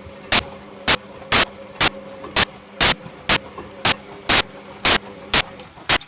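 Servis Quartz 6033 washing machine running with a steady hum, under a loud, regular knock about twice a second.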